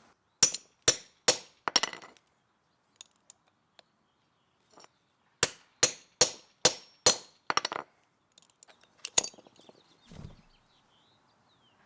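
Hammer striking a hammer-type lug crimper to crimp a 2/0 copper cable lug, sharp metallic blows about two a second. There are four blows, a pause, then about six more, and a single blow near the end, followed by a duller thud.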